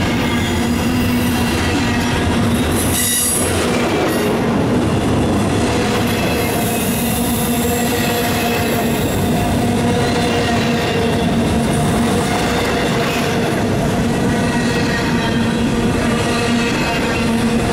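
Double-stack intermodal container train rolling past at close range: a loud, steady rumble of well-car wheels on rail, with steady squealing tones from the wheels.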